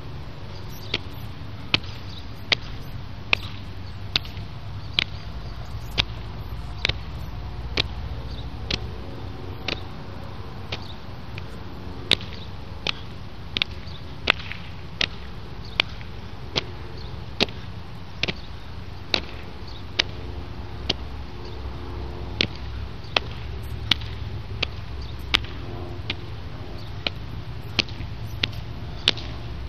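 A long run of sharp slapping cracks from a kung fu practitioner's repeated training strikes, a little over one a second at an even pace with a brief pause about a third of the way in, over a steady low rumble.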